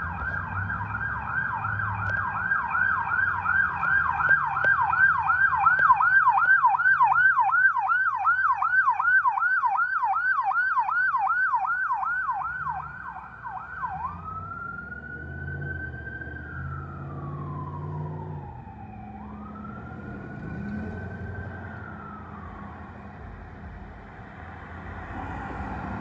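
Ambulance's electronic siren on a fast yelp, about three sweeps a second, loudest about a quarter of the way in as it passes. About halfway through it switches to a slow wail, two long rises and falls, fainter as it moves away, over low engine and road noise.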